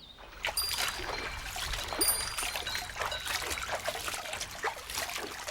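Water trickling and splashing in an irrigation channel, with many small quick splashes.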